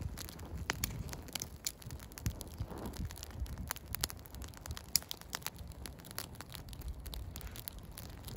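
Small wood campfire crackling, with frequent sharp pops and snaps, one louder pop about five seconds in. Wind runs across the microphone underneath as a low rumble.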